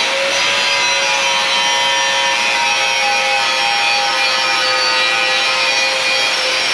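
A power sander running steadily: a constant whine over a rough, rasping noise, typical of body filler being sanded down on a steel dozer blade.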